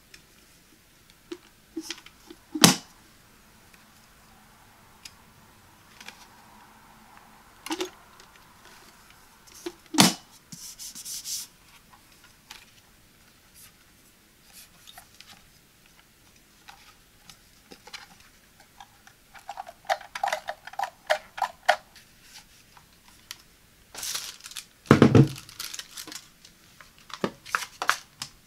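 A glass-bodied electric kettle being handled: scattered sharp clicks and taps from its plastic flip lid and the hands on the kettle. A run of quick taps comes about two-thirds of the way in, and a heavy knock, the loudest sound, follows as the kettle or its base is set down on the table.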